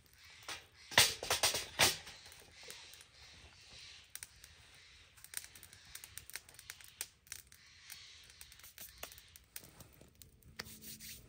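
Campfire crackling and popping: a quick run of loud sharp pops about a second in, then scattered lighter crackles and ticks.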